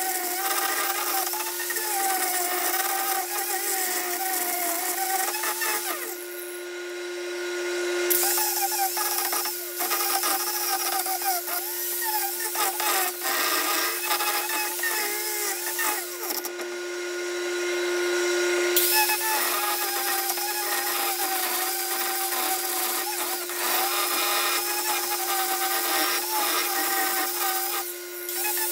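Angle grinder with a wood carving disc grinding into a walnut slab: a steady motor whine under coarse rasping of the disc on the wood. Twice, for about two seconds each, the rasping stops while the motor whine rises as the disc is lifted off and spins free.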